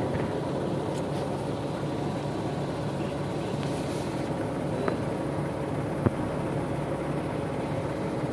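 A vehicle engine running steadily at idle, a low even hum, with two short knocks about five and six seconds in.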